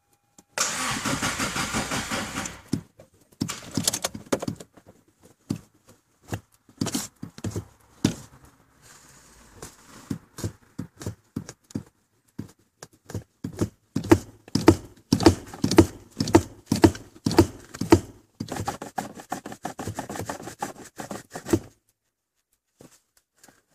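A car being cranked on its starter without catching. Between the cranks the accelerator pedal is pumped over and over, making a quick string of clicks and thumps. A second short bout of cranking comes near the end.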